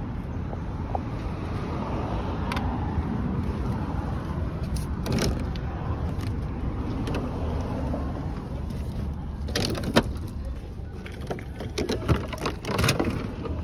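Steady low rumbling noise with a few scattered clicks and knocks.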